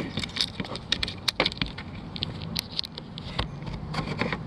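Irregular clicks, taps and rattles of hands working on a plastic cable tester while a 9-volt battery's snap connector is fitted and the battery is seated in its compartment.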